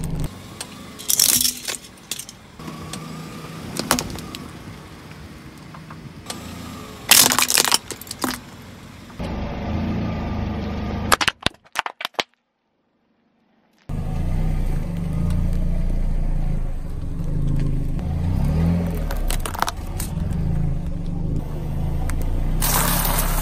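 A car tyre rolling over and crushing small objects on asphalt: several sharp cracks and crunches over the low hum of the car's engine. About halfway through the sound drops out for a second and a half, then the engine hum carries on steadily, and a loud crunch builds near the end.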